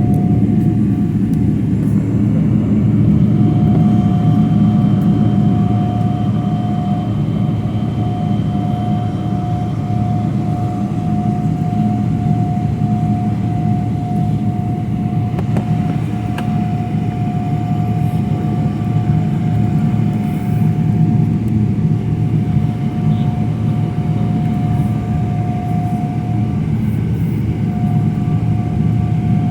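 Jet airliner engines running: a steady, heavy rumble with a constant whine over it.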